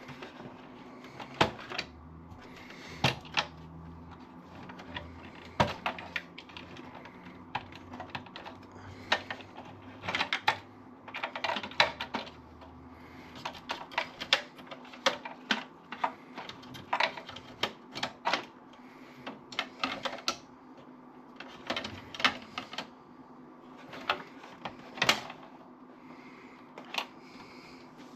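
Irregular small clicks and taps, some in quick clusters, from hands working inside a desktop computer case: handling parts and unplugging small connectors. A faint steady hum runs underneath.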